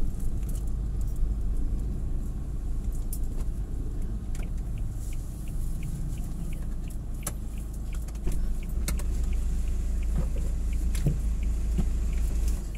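Steady low engine and road rumble of a slowly moving vehicle, heard from on board, with scattered small clicks and rattles.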